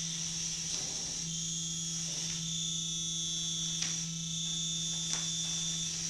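Steady electronic noise drone: a low hum held under a high, hissy whine, with two faint clicks in the second half.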